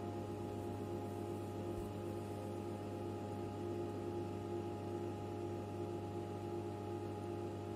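HP 9825B desktop computer running a calculation: a steady machine hum made of several held tones, with no clicks or changes.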